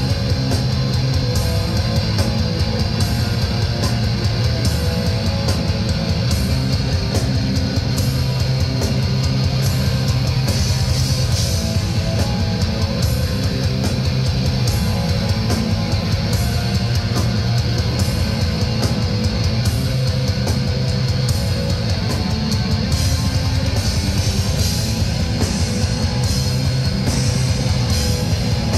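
Live black metal band playing at full volume: distorted electric guitars over steady, rapid drum hits, heard from within the crowd.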